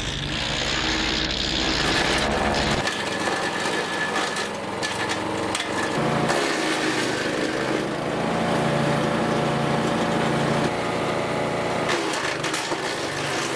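Arpal MB-60BD wood chipper with its small Weima petrol engine running while branches are fed in and shredded, the engine note mixed with the crackle of wood being chipped. The engine pitch shifts abruptly a few times.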